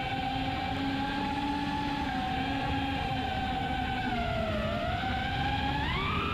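FPV quadcopter's brushless motors and folding propellers whining steadily, heard from the drone itself with wind rushing over the microphone. The pitch sags and then climbs sharply near the end as the throttle changes.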